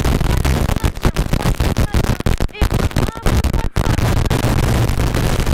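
Rally car engine and road noise heard from inside the cockpit, running hard. About a second in, the sound breaks into a choppy stretch of cuts and crackles lasting nearly three seconds, then it settles back into a steady pull.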